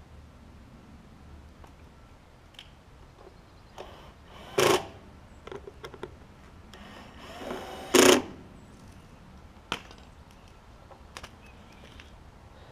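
Two pulls of the recoil starter on a Craftsman tiller's Briggs & Stratton engine, about four and eight seconds in, each a short, loud whirr; the engine does not catch.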